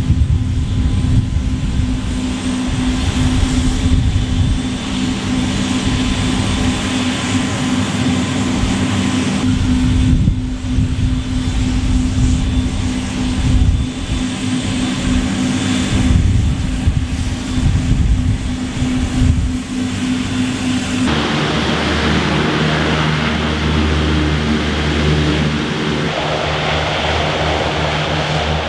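LCAC air-cushion landing craft running its gas turbines: a loud, steady drone from its propellers and lift fans with a heavy low rumble underneath. About two-thirds of the way through the sound switches abruptly to a lower, steadier hum with more hiss as the hovercraft drives across sand.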